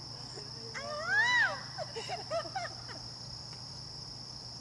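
A steady, high-pitched chorus of crickets at the lakeside at dusk. About a second in, a short call rises and falls in pitch, and a few shorter calls follow it.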